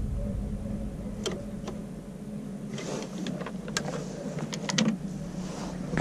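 Scattered light clicks and rattles from handling a jumper wire and tools at a truck's under-hood fuse box, a few about a second in and a cluster in the middle, over a steady low hum. No fuel pump whine is heard even with 12 volts jumped to the pump relay's output terminal, which the mechanic takes for a fuel pump fault.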